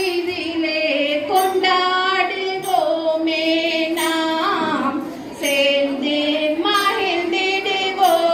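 High voices singing a single melody line in long, held phrases, with a short break about five seconds in.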